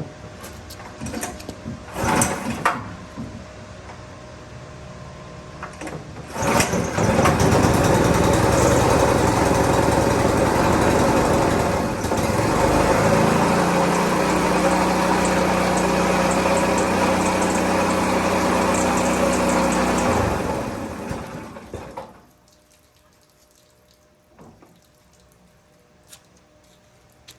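Small gasoline engine of a 2.5 gallon-per-minute pressure washer, pull-started on its recoil cord: a rattle of pulling about two seconds in, then it catches about six seconds in and runs steadily, its pitch shifting about halfway, before it is shut off and runs down around twenty-one seconds in.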